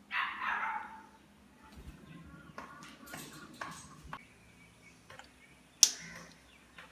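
A pet parrot gives a harsh, raspy squawk at the start, then makes soft clicks and small chattering sounds, with one sharp click about six seconds in.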